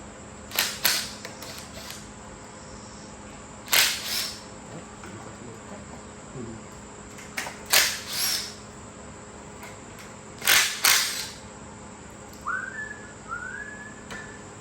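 Four short, loud, hissing bursts from a tool working on the engine, each in two quick pulses, about every three seconds. Near the end a person whistles a few rising notes.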